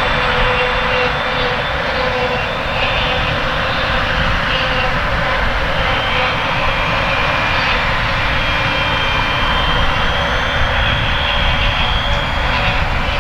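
CLAAS Jaguar 940 self-propelled forage harvester at work chopping grass: a loud, steady machine noise with high whining tones held above it.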